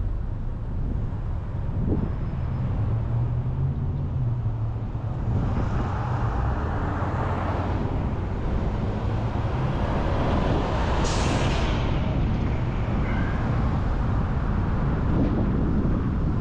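Steady road noise from a car driving on city streets: a low rumble of tyres and engine, with a broader rush of traffic noise from about five seconds in and a short sharp hiss about eleven seconds in.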